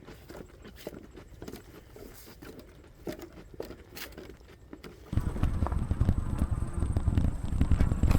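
Footsteps walking along a trail, a run of irregular soft steps. About five seconds in, a loud low rumble starts abruptly and keeps on.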